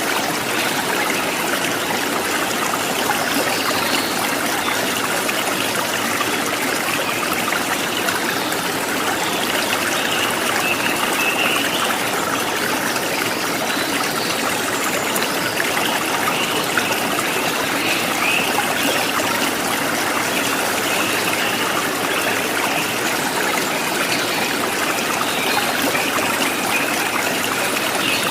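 A stream of running water, a steady trickling rush that goes on without a break.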